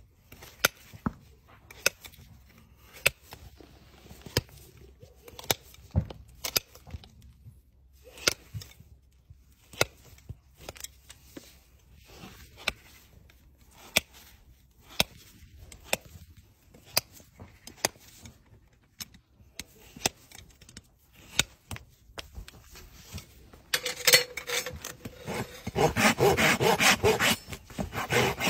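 Farrier's hoof nippers cutting through a horse's hoof wall: a sharp snip roughly once a second. About 24 s in, a hoof rasp takes over, filing the hoof with a continuous loud rasping.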